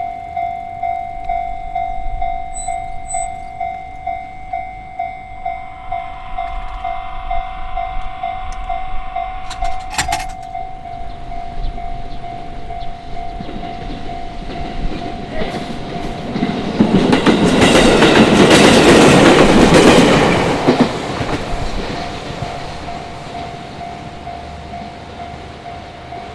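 Japanese railway level-crossing alarm ringing its steady two-strokes-a-second tone while an electric train passes over the crossing, loudest for a few seconds about two-thirds of the way through, then fading as the alarm keeps ringing.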